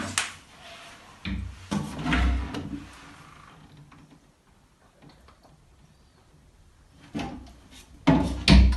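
A few separate knocks and thumps, like a door or cabinet being handled, with a quiet stretch in the middle and a louder cluster near the end.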